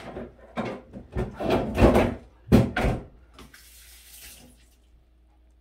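Water from a kitchen faucet splashing into the sink in a string of loud, uneven bursts as things are rinsed. About three and a half seconds in, a steadier hiss of running water lasts around a second, then fades out.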